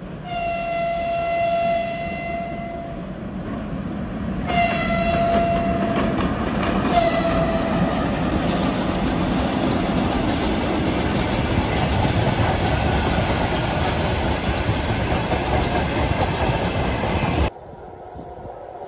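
2ES4K "Donchak" electric freight locomotive's horn sounding three times: a long blast, a shorter one, then a brief one. After that its train of tank wagons rolls past with a steady rumble of wheels on the rails, which drops suddenly to a quieter rumble near the end.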